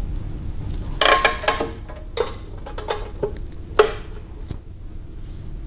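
Metal clanks and clinks from a Burr King 960-272 belt grinder as its abrasive belt is fitted back over the wheels and tension arm: a quick cluster with a brief ring about a second in, then a few single knocks over the next three seconds, over a low steady hum.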